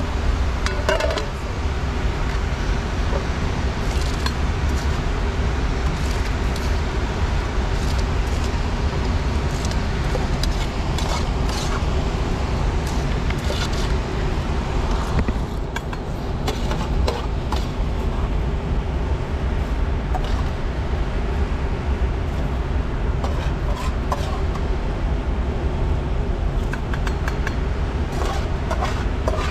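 Steady rush of a fast river, with scattered light clinks and scrapes of a metal spoon against a metal pan as rice is spooned into a pot of water.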